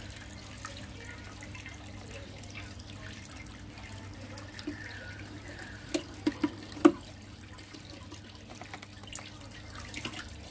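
Steady trickle and splash of water from an aquarium filter, with a low steady hum under it. A few sharp knocks come quickly one after another about six to seven seconds in.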